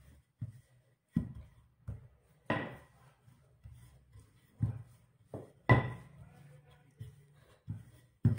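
Wooden rolling pin rolling out chapati dough on a kitchen worktop: a run of short, dull knocks at an uneven pace, roughly one a second, as the pin is pushed back and forth.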